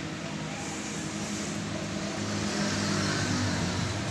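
An engine running steadily, slowly getting louder.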